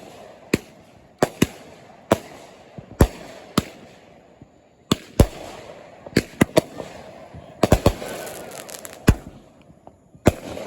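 Fireworks going off: irregular sharp bangs and cracks, some singly and some in quick clusters, each followed by a short echo.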